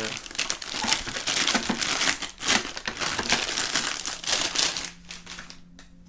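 Plastic packaging bag crinkling and rustling as it is pulled off a part. The dense crackling stops about five seconds in.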